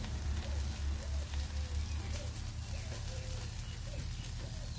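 Crackling and sizzling from hot charcoal and chicken pieces on a wire grill as mustard oil is brushed on and drips onto the coals. A low rumble runs underneath, heaviest in the first two seconds.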